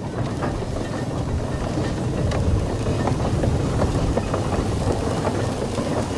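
150 Case steam traction engine running: a steady low rumble with scattered light metallic clicks.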